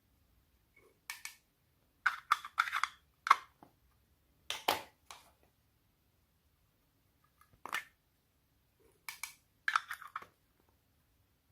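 Homemade slime being worked by hand, giving short crackling, popping squishes in irregular clusters with silent gaps between.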